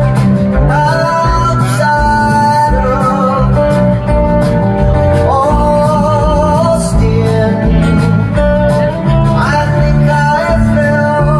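A live country band plays a song from the stage, with acoustic guitar and drums under a lead melody line of held, wavering notes, heard from the audience in a hall.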